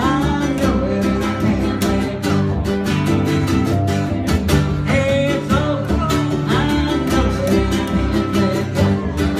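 Music: a song with guitar, a steady beat and a singing voice.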